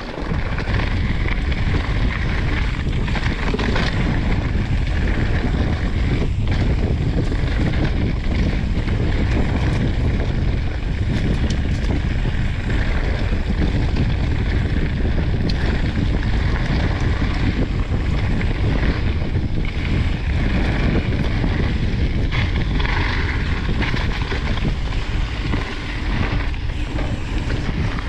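Wind buffeting the microphone during a mountain bike ride, mixed with the tyres rolling over the dirt trail: a steady, loud, deep noise.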